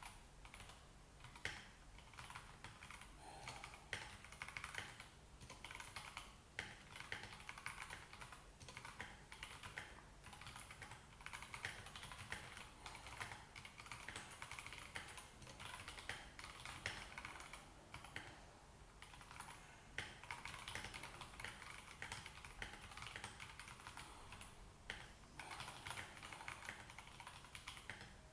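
Continuous typing on a Royal Kludge RK84 mechanical keyboard with linear Gateron Yellow switches and thick XDA-profile PBT keycaps: a steady stream of key clacks with brief pauses, and a low hum underneath.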